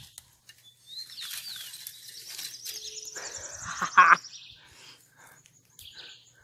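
Birds calling: a few slurred whistles, then a long trilled call that rises and falls. About four seconds in there is a short, loud burst of noise while a hooked traíra is swung out of the pond.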